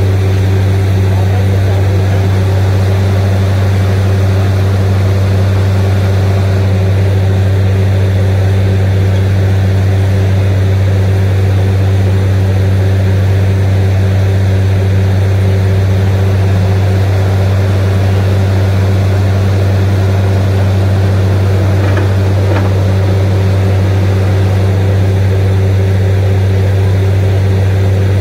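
Truck-mounted borewell drilling rig running steadily while drilling: a loud, unbroken engine drone with a deep, even hum.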